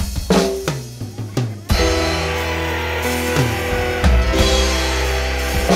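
Dangdut band playing the intro of a song: a run of drum strokes, then the full band comes in about a second and a half in, with sustained bass and keyboard notes over a steady drum beat.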